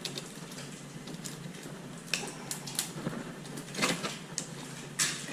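Scattered clicks and knocks of oven door parts being handled and fitted, the loudest knocks near the end, over a steady low hum.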